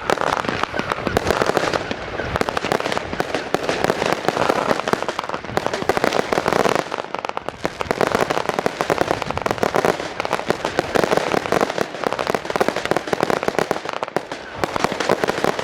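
Fireworks going off: a dense, unbroken run of rapid pops and crackles, with no single big bang standing out.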